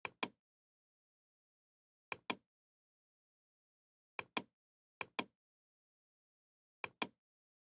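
Computer mouse clicking: five pairs of short sharp clicks, each pair a quick click-click, spaced one to two seconds apart with dead silence between.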